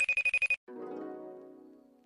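A telephone ringing with a rapid trill, the tail of its second ring, stops about half a second in. Music then begins with a chord that fades out slowly.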